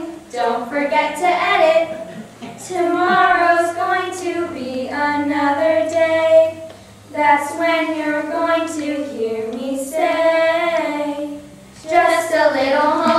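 High voices singing a song in held, sung phrases with short breaths between them.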